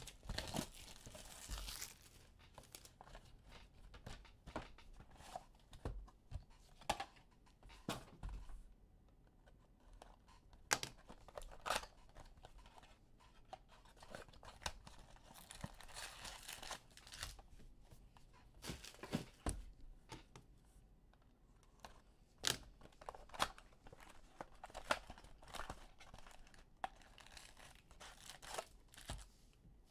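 Hands tearing open the wrapping of a Bowman's Best baseball card hobby box and handling the cardboard: irregular tearing and crinkling rustles with sharp little clicks and taps, fairly faint.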